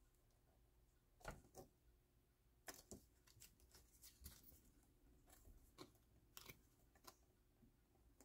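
Faint, scattered rustles and light taps of paper being handled, folded and pressed into place by hand.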